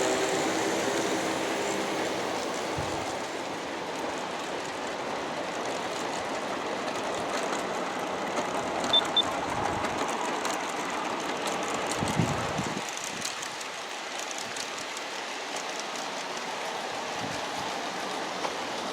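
G-scale model coal train of Aristo-Craft 100-ton hoppers rolling along garden-railway track: a steady rumble and rush of many wheels on the rails. Two short high beeps come about nine seconds in.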